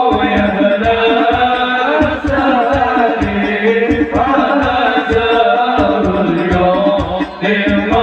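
Sholawat, Islamic devotional songs praising the Prophet, sung by voices over an amplified sound system, with drums keeping a steady beat.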